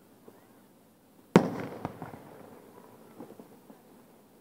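An aerial firework shell bursting with one sharp bang about a second and a half in, its echo fading over the next second or so. A smaller pop follows half a second later, then faint scattered crackles.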